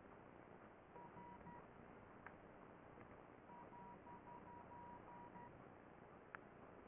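Near silence with room tone. A faint, rapid beeping at one steady pitch comes in two short runs, about a second in and again from the middle, with a couple of soft clicks.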